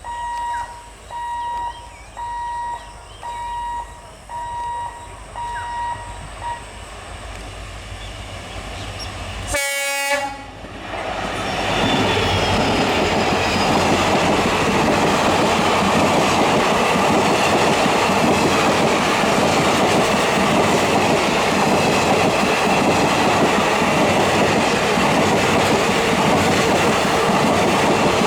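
Level crossing warning beeper sounding in a steady on-off rhythm for the first several seconds. At about ten seconds in, an EMD WDP-4D diesel locomotive sounds one horn blast about a second long. The express then passes at speed, its wheels clattering over the rails loudly and steadily to the end.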